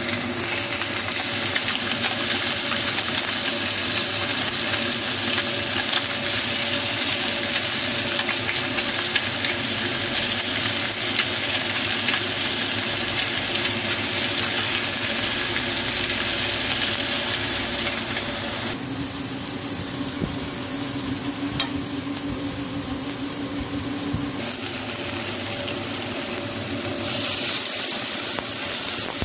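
Oil sizzling and spattering steadily in a pan as two whole fish fry. For several seconds past the middle the sizzle goes quieter and duller, and it picks up again near the end as chunks of tomato go into the same hot oil.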